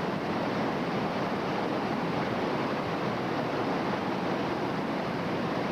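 Whitewater rapids rushing, a steady even roar of water.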